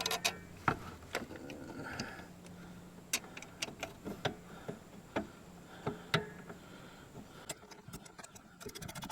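Hand tools working a bolt on a lawn tractor's brake assembly: scattered metal clicks and taps, then a quick run of fine ratchet clicks near the end as the bolt is turned in.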